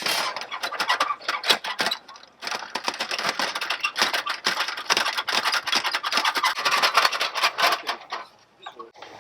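Dense, irregular rustling and scraping of camping gear being handled and packed away, with a short lull about two seconds in. It stops abruptly near the end.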